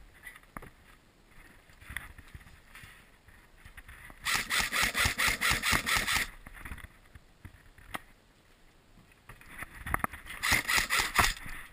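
Airsoft gun firing two rapid strings of shots, about six a second: the first lasts about two seconds and starts about four seconds in, the second comes near the end.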